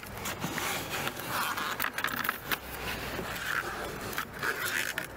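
Scissors cutting through a sheet of clear insulating plastic film: irregular rustling of the sheet with short, sharp snips.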